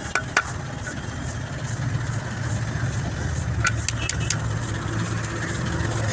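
Hammer striking a metal drift set on the pinion bearing inside a truck differential housing: two sharp metallic strikes at the start and a quick group of lighter taps about four seconds in. A steady low engine hum of an idling engine runs underneath.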